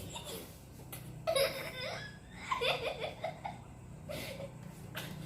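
A young child laughing in short broken bursts, once about a second and a half in and again in a quick choppy run near three seconds.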